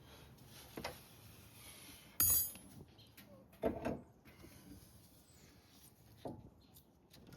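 A few separate metallic clanks and clinks of tools and brake parts being handled and set down. The loudest comes about two seconds in with a short ring, another follows a second and a half later, and there are lighter knocks at the start and near the end.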